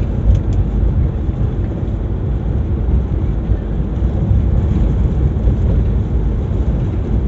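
Daihatsu Zebra Espass on the move: a steady low rumble of engine and road noise.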